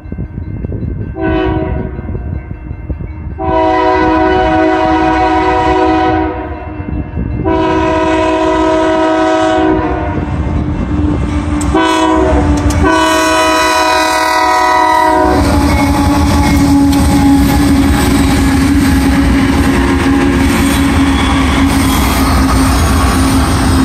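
Freight locomotive's multi-note air horn sounding the grade-crossing signal, long, long, short, long, after an earlier short blast. Then the locomotives' diesel engines run loudly past, with wheels clattering on the rails.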